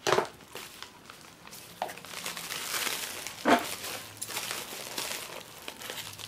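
Clear plastic wrapping crinkling as it is handled and cut open with scissors, with a few sharp crackles.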